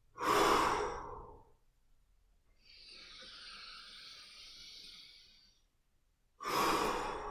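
A person's breath in a guided breathing exercise: a forceful, sighing exhale just after the start, a long quieter inhale, then a second forceful exhale near the end.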